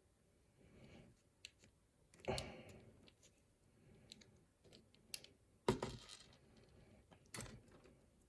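Small metal parts of a pin-tumbler lock clicking and clattering as the lock is taken apart, with a few light clicks and three louder rattles.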